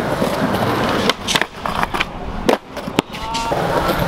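Skateboard rolling on concrete, its wheels making a steady rumble, with several sharp clacks.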